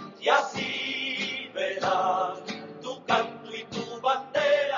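A song with a man singing over guitar accompaniment.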